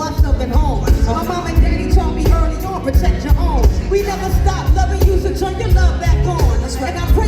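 Live hip hop music with a heavy bass beat and a voice singing over it.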